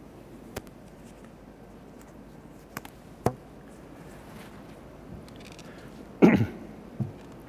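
Handling noise at a lectern microphone: a few sharp clicks and taps as a face mask is pulled off, then a man coughing into the microphone about six seconds in, followed by a smaller thump.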